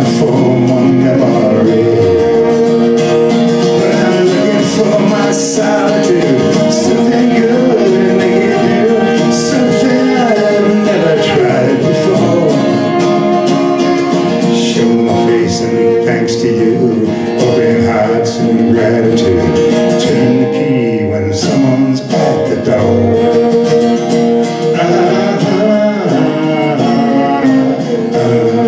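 Violin playing a melody with sliding notes over a strummed acoustic guitar.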